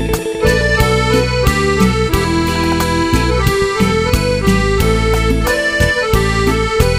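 Background music: an accordion-like melody over a steady bass and beat.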